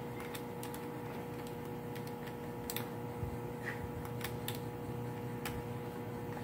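Scattered light clicks and taps, irregular and a few per second at most, from hands handling a laptop and an external SSD with its USB cable. A steady faint hum runs underneath.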